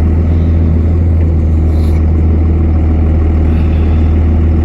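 Truck engine running, heard from inside the cab as a steady, loud low hum.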